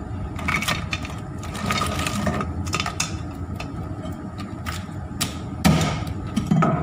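Meat cleaver chopping lobster shell on a wooden cutting board: a run of irregular chops and cracks, about ten strokes, over a steady background hum.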